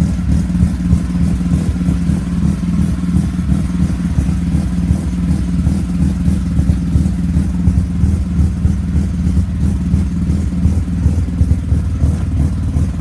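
1981 Mazda RX-7's 12A rotary engine with a Weber carburettor running steadily at a fast idle, a rumble the owner thinks needs a good tune and a set of plugs after standing unused for a long time.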